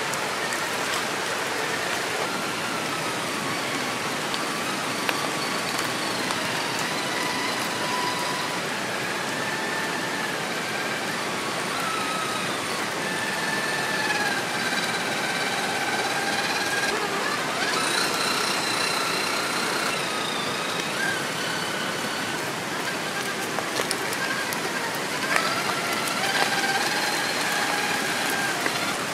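Whine of a radio-controlled crawler's brushless electric motor (Hobbywing QuicRun Fusion 1800KV), its pitch stepping and gliding up and down with the throttle, over a steady hiss of rain. A few sharp ticks come near the end.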